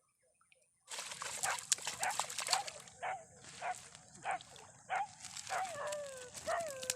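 An animal yelping over and over, about two calls a second; from about five seconds in, the calls draw out into longer falling howls. A steady hiss starts about a second in and runs under the calls.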